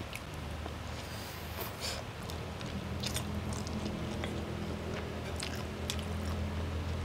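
A person chewing and biting a mouthful of spaghetti aglio olio with shrimp close to the microphone, with small irregular wet clicks, over a steady low hum.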